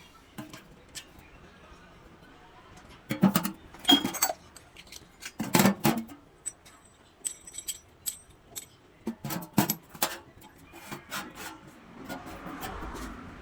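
Small metal parts and tools being handled: irregular clinks and knocks that come in short clusters, with a softer scraping noise near the end.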